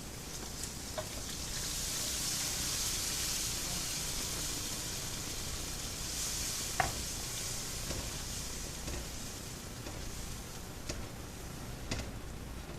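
Ground pork sizzling in a hot pan. The high hiss swells about a second and a half in, and a few light clicks come from a utensil against the pan.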